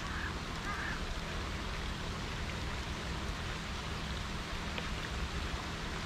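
Steady hiss of rain falling, with a faint low hum underneath.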